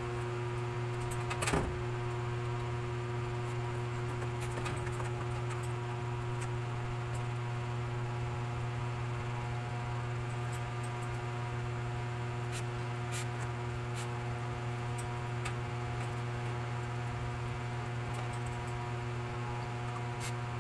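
Steady machine hum with a few fixed tones, under one sharp click about a second and a half in and scattered small clicks and rustles of gloved hands handling things in the whelping box.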